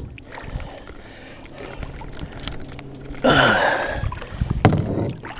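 Kayak paddle stroke in still water: one loud splashing rush of the blade about three seconds in, with a few sharp knocks around it.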